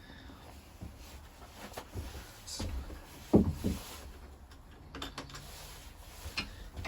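Scattered light clicks and knocks, with two dull thumps in quick succession about halfway through that are the loudest sounds.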